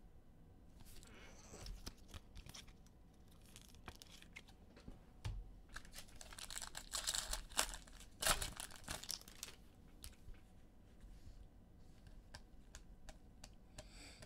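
A foil trading-card pack is torn open and its wrapper crinkles, loudest about six to nine seconds in. Light clicks and rustles of cards being handled run through the rest.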